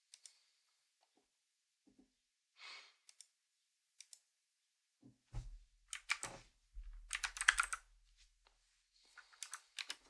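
Typing on a computer keyboard: a few scattered key clicks, then a quick run of keystrokes about halfway through, with a couple of low thumps underneath.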